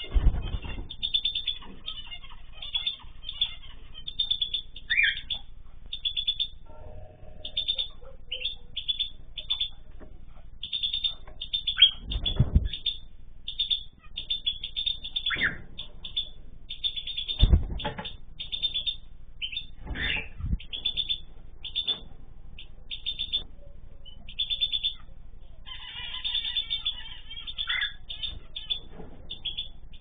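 Aviary birds (cockatiels with canaries and finches) chirping almost without pause, with now and then a louder rising call. A few low thuds of wings flapping come as birds fly between perches, at the start and about 12, 17 and 20 seconds in. The sound is thin and cut off at the top, as from a small camera microphone.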